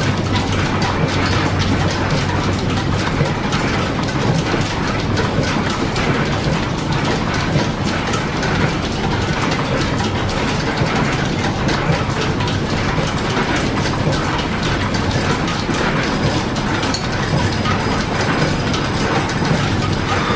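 Old line-shaft-driven lathe and overhead shafting running: a steady, dense clatter of gears and belts over a low hum.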